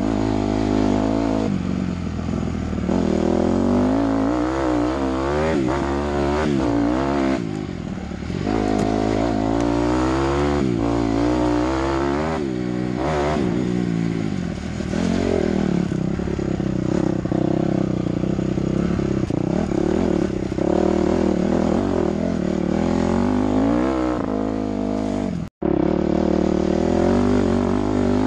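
Dirt bike engine under way, its pitch rising and falling over and over as the throttle is worked and gears change. Near the end the sound cuts out completely for an instant.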